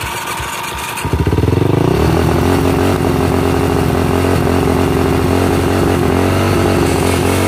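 Yellow Suzuki dirt bike's engine comes in loudly about a second in, revs up, then runs steadily at a fast idle.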